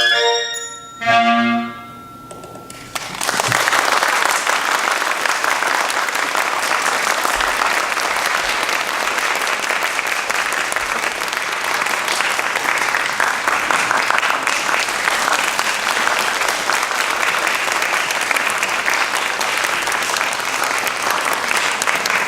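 Clarinet ensemble playing its closing notes, ending with a short final chord about a second in. Then, from about three seconds in, an audience applauding steadily.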